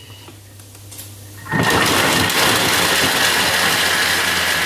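Thermomix-style kitchen machine's motor and blades spinning at high speed, grating cheese. It starts suddenly about a second and a half in, a loud steady whine over the noise of chopping.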